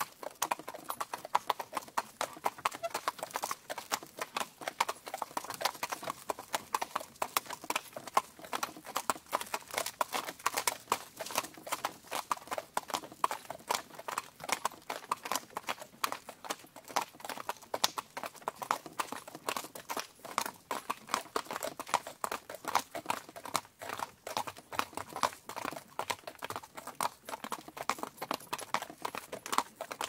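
Two horses pulling a cart, their hooves clip-clopping in a steady, continuous run of closely spaced, overlapping hoof strikes.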